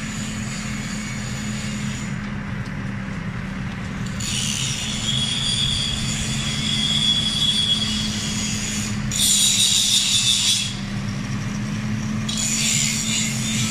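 A vehicle engine running steadily, with high-pitched squealing coming and going in three stretches, starting about four seconds in.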